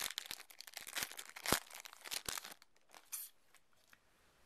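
Foil Yu-Gi-Oh booster pack being torn open and its wrapper crinkled. A dense crackling lasts about two and a half seconds, with one more short crackle a little later, then it goes quiet.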